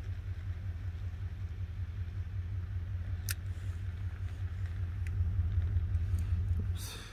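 Steady low rumble, with a sharp click about three seconds in and a short hiss near the end.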